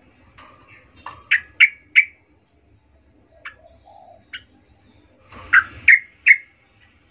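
Yellow-vented bulbul (trucukan) giving short, sharp call notes: a quick run of four about a second in, two single notes in the middle, and three louder ones near the end.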